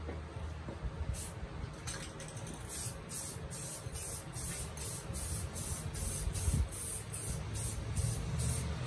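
Aerosol spray can hissing in short, quick bursts. After a couple of single bursts it settles about three seconds in into a run of two or three bursts a second.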